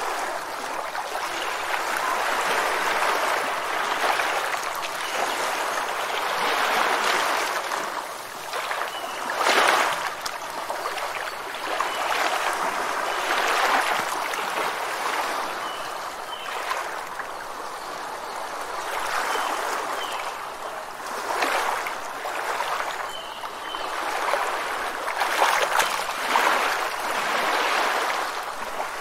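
Rushing, foaming water that surges and eases every few seconds, with a few faint short chirps.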